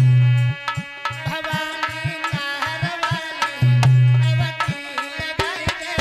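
Instrumental interlude of an Alha folk song: hand-drum strokes in a quick, dense rhythm under a sustained melody line. A deep held bass note sounds at the start and again for about a second just past the middle.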